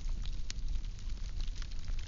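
Firewood burning: a steady low rumble with scattered crackles and snaps, the sharpest about half a second in.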